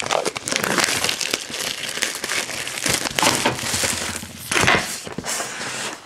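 Clear plastic shrink-wrap being peeled off a cardboard box, crinkling and crackling continuously with many small sharp crackles.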